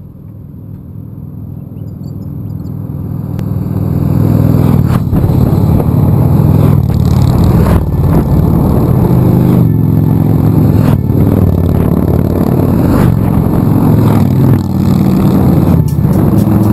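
Harley-Davidson V-twin motorcycle engines running and revving, growing louder over the first few seconds and then holding steady, with sharp clicks through it.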